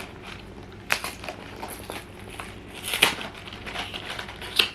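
Glued-shut cardboard box being pried and torn open: a sharp crack about a second in, a louder crackling tear around three seconds, and another snap near the end.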